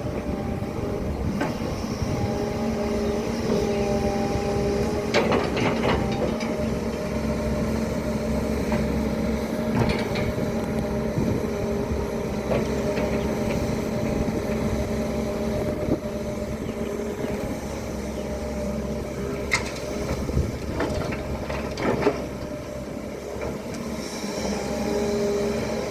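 Hydraulic excavator's diesel engine running steadily under load, with a few sharp metallic knocks from the machine working.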